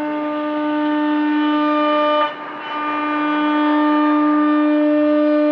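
CNC router spindle running with a steady high whine while cutting PVC. The whine drops out briefly about two seconds in and then picks up again.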